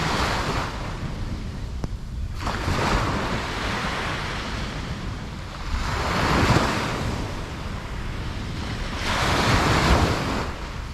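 Ocean waves breaking and washing on a beach, swelling up and falling back several times, with a low wind rumble on the microphone throughout.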